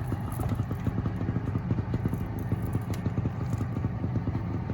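A boat's motor running steadily at low speed, a fast, even low pulse with no change in pace.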